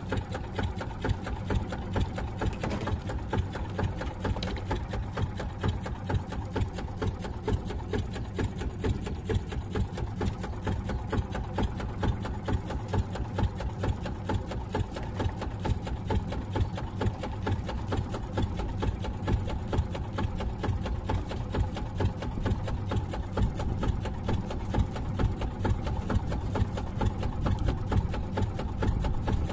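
Small fishing boat's engine running steadily with a rapid, even chugging.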